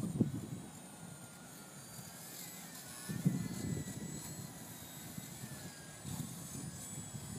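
Faint whine of the E-flite UMX Carbon Cub SS micro RC plane's electric motor and propeller, its pitch slowly rising and falling as the plane flies. Gusts of wind buffet the microphone, loudest near the start, a little after 3 s and around 6 s.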